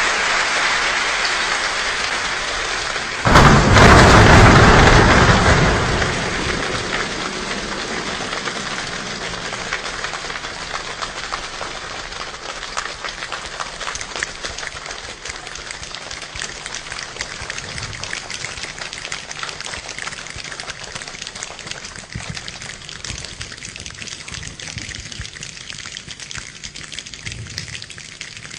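Heavy rain falling, with a sudden loud clap of thunder about three seconds in that rumbles for a couple of seconds; afterwards the rain slowly gets quieter.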